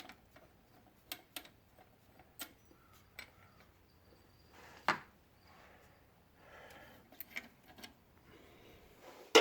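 Scattered light metal clicks and knocks of hand tools and a mounting bolt being worked out of the alternator bracket, with a few brief scrapes and a louder knock near the end.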